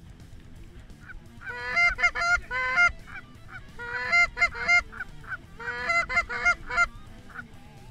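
Canada goose calls: three quick bursts of honks and clucks, each honk breaking sharply from a low note to a high one, loud and close.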